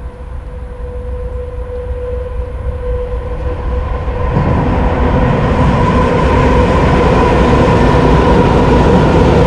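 Train passing overhead, growing steadily louder, with a steady pitched tone sounding over the rumble. About four seconds in the noise jumps up sharply and stays loud.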